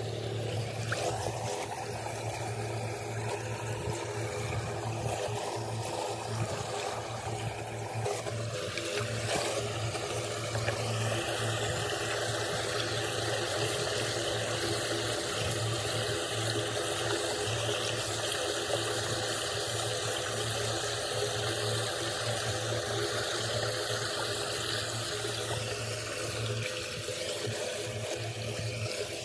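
Floodwater pouring steadily into a curbside storm-drain inlet as it is cleared of debris by hand. A steady low hum runs underneath.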